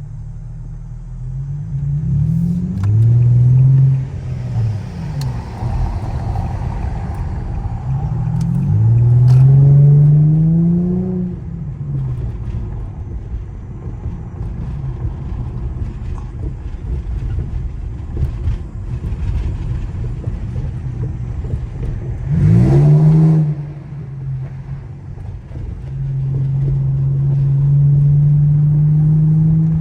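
Infiniti G35's 3.5-litre V6 with its exhaust resonator deleted, accelerating repeatedly: the exhaust note rises in pitch on several pulls, one a short sharp rev, then holds a loud steady drone near the end.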